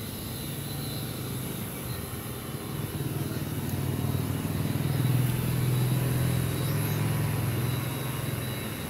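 ideaForge Ninja quadcopter's electric rotors humming steadily as it lifts off and climbs, growing louder toward the middle and easing a little near the end.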